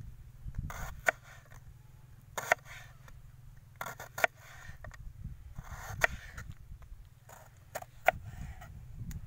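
Kitchen knife slicing a red onion on a wooden chopping board: a short crunch as the blade goes through the onion, then a sharp knock of the blade on the board. Five cuts, about every one and a half to two seconds.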